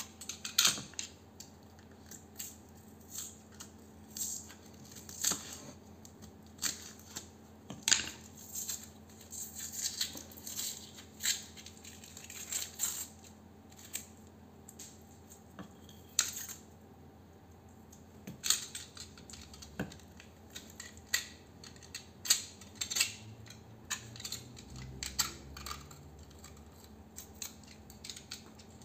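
Copper winding of a small transformer being stripped by hand: irregular sharp snips and clicks as the wire and its paper insulation are cut and picked apart with hand cutters.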